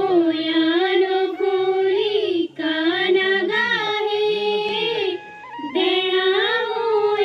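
Young girls singing a slow song with long held notes, breaking off briefly twice for breath, about two and a half seconds in and again a little after five seconds.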